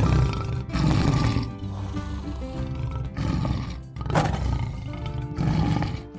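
Several loud animal roars over steady background music.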